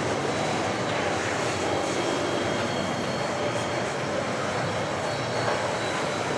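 Container wagons of a 4,000-ton freight train rolling past: a steady noise of steel wheels on rail, with a faint thin high squeal over it.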